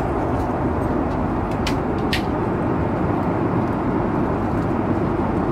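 Steady rushing noise of an airliner cabin, with two light clicks about two seconds in.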